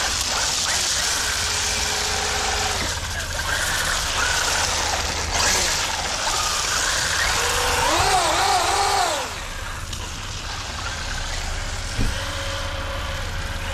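Radio-controlled Traxxas UDR truck drifting: its brushless electric motor whines up and down with the throttle over a steady hiss of hard 3D-printed drift wheels sliding on the ground. A single knock about twelve seconds in.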